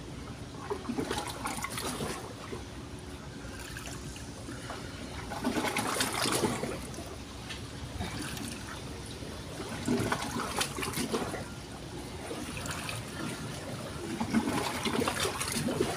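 Water trickling and splashing, with louder swells of splashing about a second in, around six seconds in, around ten seconds in and near the end.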